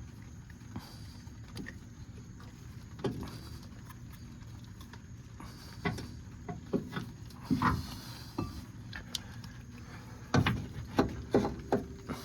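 Scattered light clicks, taps and knocks of hands working rubber seals and parts into a truck's brake caliper, busiest in the second half, over a steady low hum.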